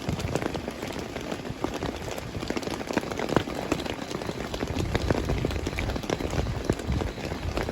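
Heavy rain falling steadily, with many individual drops striking close by over the dense hiss of the downpour. A low rumble swells up about five seconds in.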